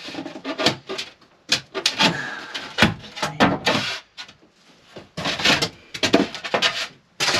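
Rigid foam board insulation being forced into a wooden frame: irregular rubbing, scraping and squeaking of foam against wood, with knocks, in bursts with a short lull partway through.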